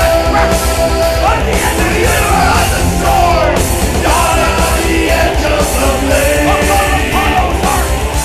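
Heavy metal song: a male vocalist sings and yells over a loud rock band of electric guitars and drums, the voice sliding up and down in pitch.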